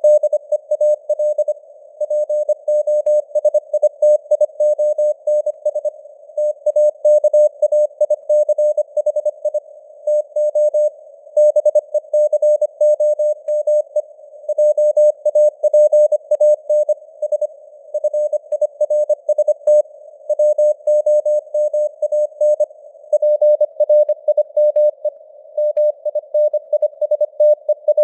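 Morse code (CW) sent at 25 words per minute: a single mid-pitched tone keyed on and off in rapid dots and dashes, with short pauses between words. A narrow hiss of simulated radio noise sits around the tone between the elements.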